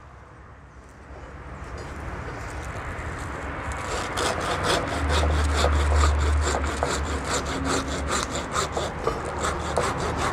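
Hand saw cutting through a woody tree branch just below an air layer, to free the rooted layer from the tree. The sawing grows louder over the first few seconds, then runs in even strokes of about four a second.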